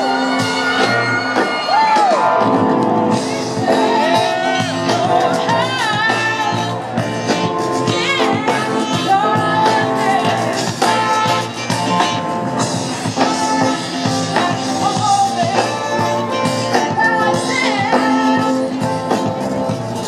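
Live big band playing over a loud sound system, with a singer's voice carrying the melody in long, wavering notes.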